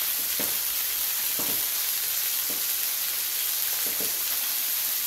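Chicken and onion frying in a pan, a steady sizzle with a few short knocks scattered through it.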